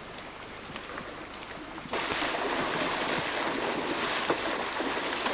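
Steady noise of wind and sea water, with faint small splashes and clicks, jumping abruptly to a louder level about two seconds in.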